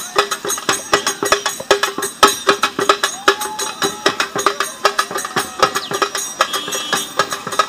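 Two hand-played barrel drums (dhol) beating a fast, busy rhythm of sharp strikes.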